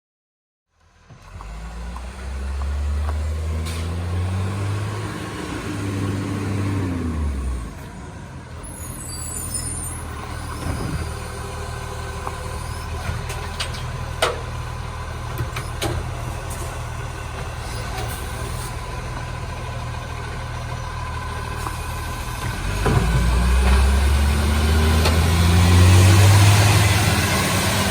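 Recycling garbage truck's diesel engine revving up and pulling away twice, with a steady lower running in between.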